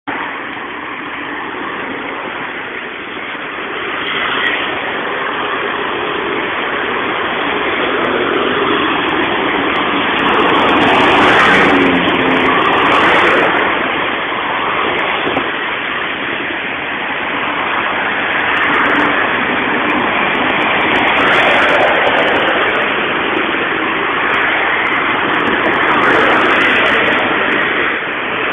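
Street traffic noise heard through a cellphone microphone: a dense, steady rush of passing cars that swells louder a few times.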